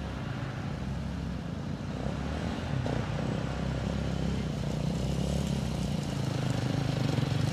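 Dirt bike engine running as the bike approaches along the track, growing gradually louder.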